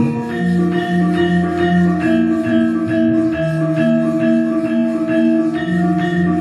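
Javanese gamelan playing an instrumental passage: struck metallophones ringing out a steady run of notes over a low sustained tone.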